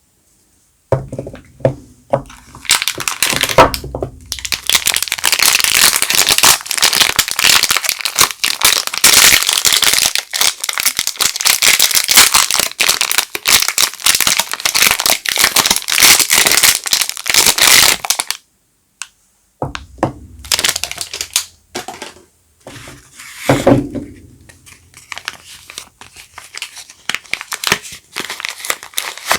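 Soap wrapping being crinkled and torn open by hand. A long stretch of dense crackling runs from about a second in to about eighteen seconds, then comes shorter, scattered rustles and handling knocks.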